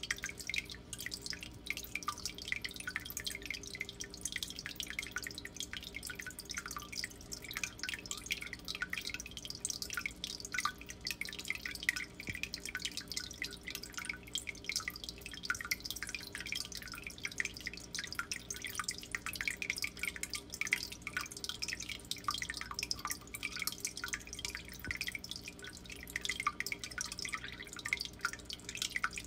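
Water in a turtle aquarium trickling and dripping steadily, a dense irregular patter of small splashes, over a low steady hum.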